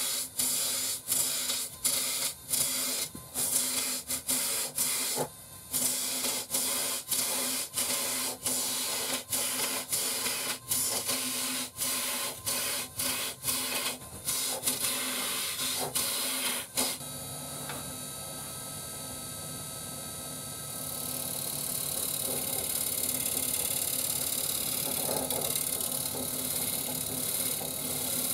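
Wood lathe running with a steady hum while a turning tool cuts the spinning spalted maple and mahogany bowl, a scraping, shaving sound. For the first half the tool cuts in short strokes with brief breaks about once or twice a second, then it cuts continuously, growing louder near the end.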